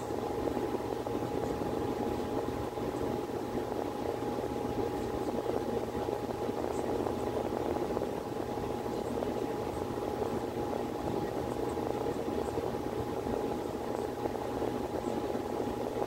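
Miller E2 series furnace running in heating mode: a steady rush of air from the blower with a constant hum-like tone over it.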